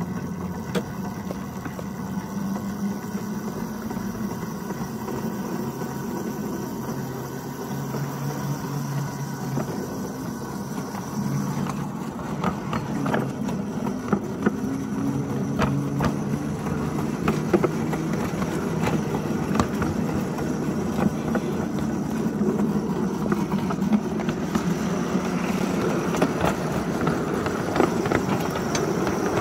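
Ride-on miniature railway locomotive running along the track: its electric traction motor and chain drive hum steadily while the wheels click over rail joints, the clicks becoming frequent from about twelve seconds in.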